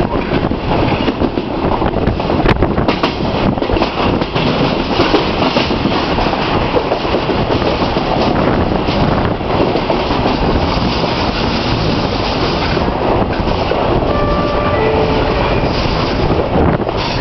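SuperVia Série 1000 electric commuter train running along the track, heard from an open window: a loud, steady rumble of wheels on rail with a few sharp clicks from the wheels and track about two to three seconds in.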